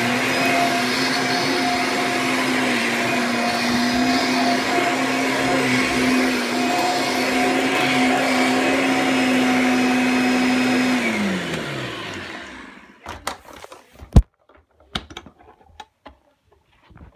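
Kirby Sentria upright vacuum cleaner running steadily while being pushed over carpet, then switched off about eleven seconds in, its motor whine falling in pitch as it winds down over a second or so. A few sharp clicks and knocks follow, one louder knock among them.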